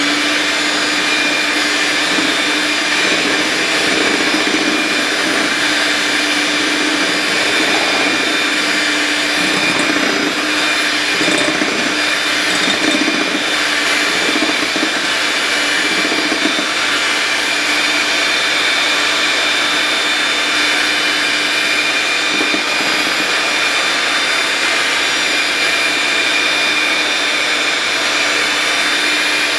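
Electric hand mixer running steadily at one speed, its motor whirring as the beaters whisk a thin egg-and-sugar cake batter.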